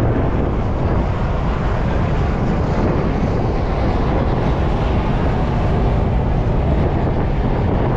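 Steady, even rumble of a ferry under way, with wind buffeting the microphone.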